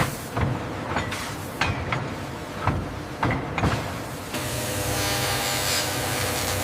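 Workshop machinery: a series of sharp metallic knocks or clanks over a steady noise, then from about four seconds in a steady machine hum with hiss.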